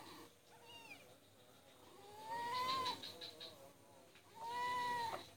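A cat meowing three times: a faint short call about half a second in, then a long meow rising in pitch about two seconds in, and another long, level meow near the end.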